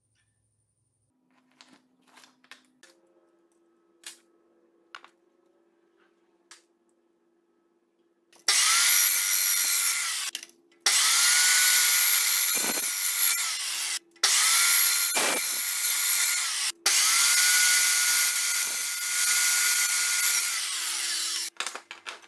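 Small electric motor running in four long bursts, each lasting a few seconds. Each burst spins up with a rising whine, holds with a harsh, high hiss and winds down at the end, with short gaps between them. Faint clicks of handling come before the first burst.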